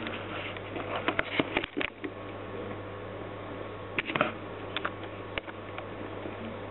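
Pet rats moving about a wire-mesh pen on a tiled floor: scattered light clicks and scratches, a cluster about a second in and another around four seconds, over a steady low hum.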